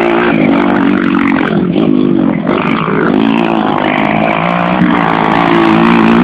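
Motocross bike engines running, their pitch rising and falling as the riders open and close the throttle.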